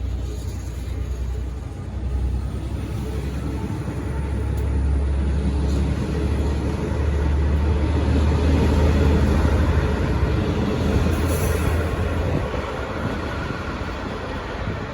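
Diesel-hauled V/Line passenger train pulling out: a steady low diesel rumble with the noise of the train rolling along the track, swelling to its loudest about halfway and easing off towards the end.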